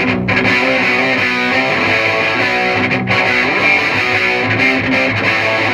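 Electric guitar played through a handmade, cranked, cathode-biased tube amp with 6P3S-E output tubes into a 1x12 cabinet with a Celestion Gold speaker: riffs and chords that sound nice and clear and not very noisy. The amp is loud enough to overpower the phone's microphone aimed straight at the speaker.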